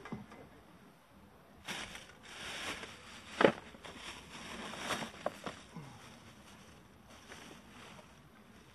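Rustling and handling noises of fishing gear being moved about, with one sharp knock about three and a half seconds in and a couple of lighter clicks soon after.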